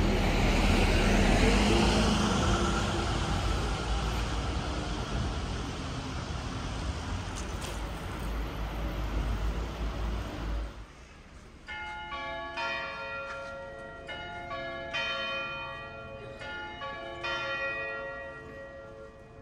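Street noise with traffic going by, then, after a sudden cut about eleven seconds in, church bells ringing: several bells of different pitches striking in turn, about a stroke every half-second, each ringing on.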